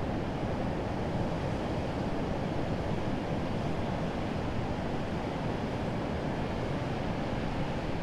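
Urriðafoss waterfall on the Þjórsá river: a broad cascade of white water rushing steadily over rocks and through rapids, a dense, even, low-pitched rush.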